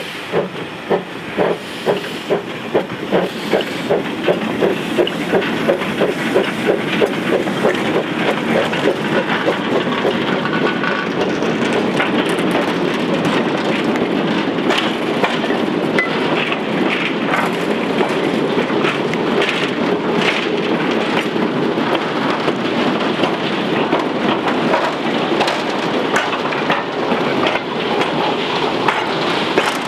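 Small narrow-gauge steam locomotive Prince pulling away, its exhaust beats about two a second and quickening. The beats blur into a steady rattle and clatter of the loaded slate wagons' wheels rolling past on the rails.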